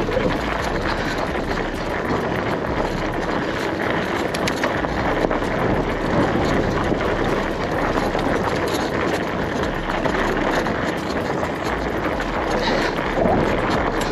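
A WaltX Dune 1 fat-tyre bicycle rolling over a loose gravel track: a steady crunching hiss of the wide tyres on the stones, dotted with many small clicks, with wind on the microphone.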